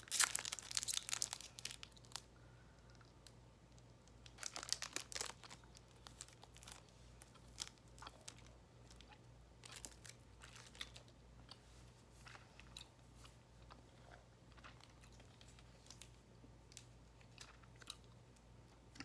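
Airheads candy wrapper crinkling and tearing as it is opened, loudest in the first two seconds and again around five seconds in, followed by faint, scattered chewing of the chewy taffy.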